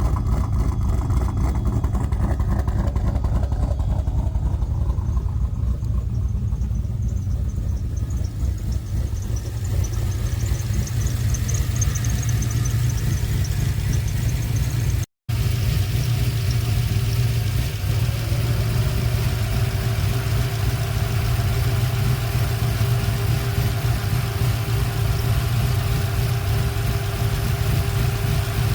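V8 engine in a BMW E46 idling steadily while its cooling system is burped of trapped air. There is a brief dropout about halfway through, and after it a faint steady whine runs along with the idle.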